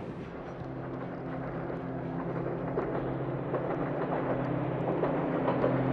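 An engine running with a steady low hum, growing steadily louder as it comes closer.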